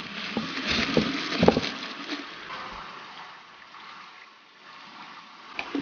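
Marinated cucumber strips being packed into a glass jar, knocking against the glass several times in the first two seconds. The marinade is then poured in with a thin, quiet trickle.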